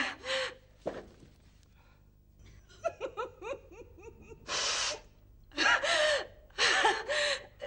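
A person sobbing theatrically: loud gasping sobs, with a run of quick, broken whimpering cries in the middle.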